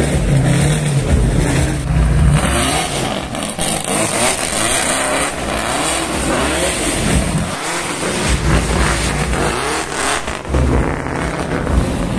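A drift car's engine being revved over and over, its pitch rising and falling in repeated sweeps through the middle, over a constant low rumble.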